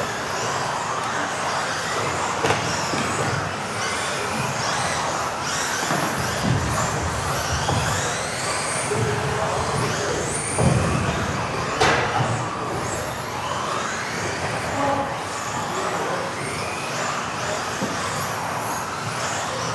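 Several electric 1:10 RC offroad buggies racing together in a hall: their motors whine, rising and falling quickly as they accelerate and brake, over a constant hiss of tyres on the track. A couple of sharp knocks cut through, about two and a half seconds in and again near the middle.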